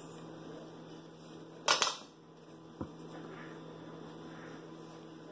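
Mostly quiet kitchen with a steady low hum. About two seconds in comes a brief rustling hiss as granulated sugar is poured from a measuring cup into a stainless steel pot, followed by a faint click.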